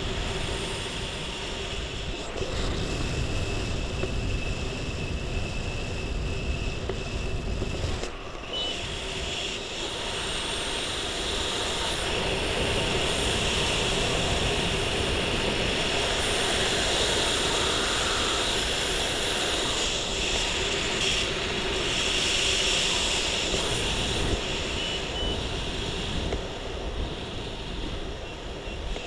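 Wind rushing over a helmet-camera microphone during a parachute descent under an open canopy. It is a steady roar that grows louder in the second half.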